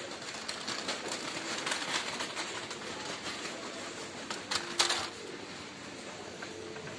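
Busy indoor background din with many small clicks and clatters, and a couple of sharper knocks about four and a half to five seconds in.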